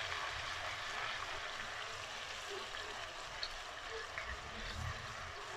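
Ginger-garlic paste frying in hot oil in an aluminium karahi: a faint, steady sizzle.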